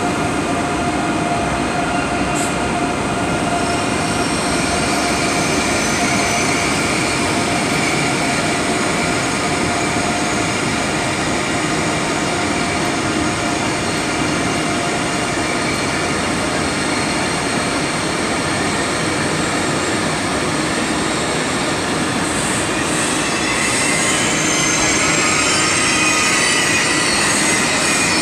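ICE high-speed train rolling slowly along the platform track: a steady rumble with thin, high wheel-squeal tones running over it. It grows louder and brighter for the last few seconds.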